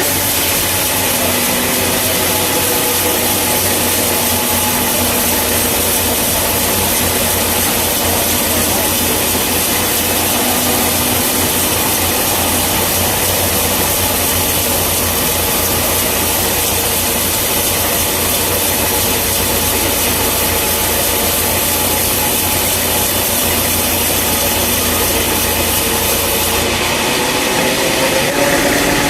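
Sawmill saw cutting through a log, with the machine's engine running steadily under it; the cutting sound changes near the end.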